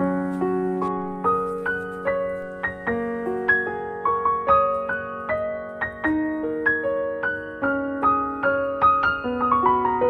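Background piano music: a gentle melody of single struck notes over sustained bass notes.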